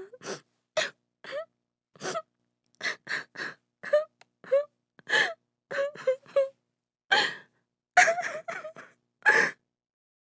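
A woman crying: a string of short sobs and gasping, hiccuping breaths with brief wavering voiced moans, a quick cluster of sobs about eight seconds in and a last loud sob near the end.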